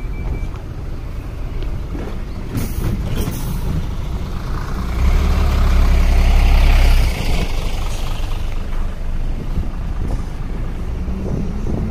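Road traffic, with a heavy vehicle such as a truck or bus passing: a deep engine rumble and a hiss swell up about five seconds in, last for a couple of seconds, then die back to steady traffic noise.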